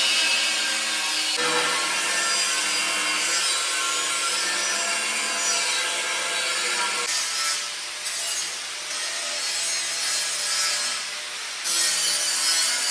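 Electric power tool cutting sheet steel, a steady grinding, sawing noise whose pitch shifts a few times as the load changes, then stops abruptly.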